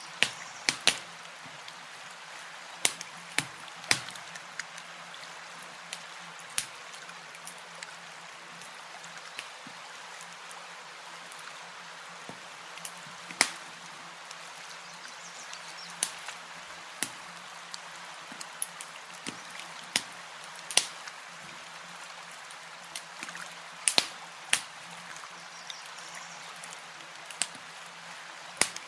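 Campfire crackling, with irregular sharp pops every second or so, over a steady wash of lapping lake water.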